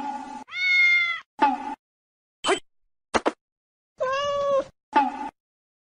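Cat meowing: two long, level meows, one about half a second in and one about four seconds in, with several short meows between and after them and dead silence in the gaps.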